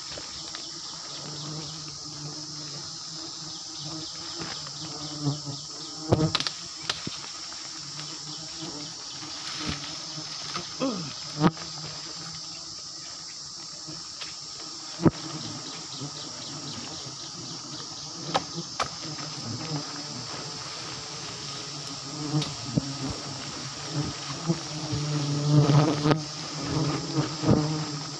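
A swarm of giant honeybees buzzing at close range around their exposed comb: a steady droning hum that swells louder near the end as bees fly close. A few sharp knocks, the loudest about halfway through.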